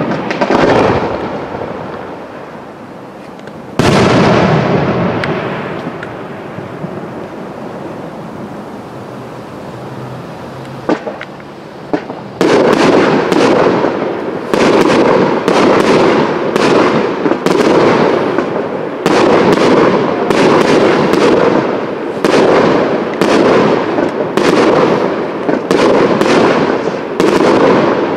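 Aerial firework shells bursting. One loud bang about four seconds in, its rumble dying away slowly; from about twelve seconds on, shells burst in quick succession, one or two a second.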